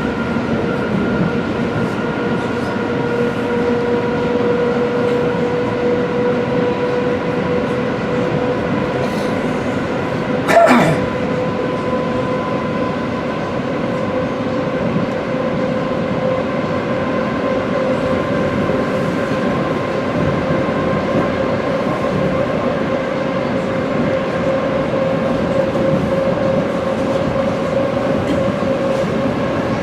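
ED4M electric train running between stations, heard from on board: a steady rumble from the running gear with a steady whine on top. A single short, loud knock about ten seconds in.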